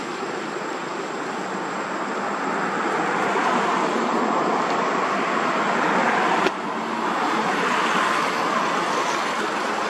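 Steady rushing outdoor noise that swells and eases, broken by a short click about six and a half seconds in.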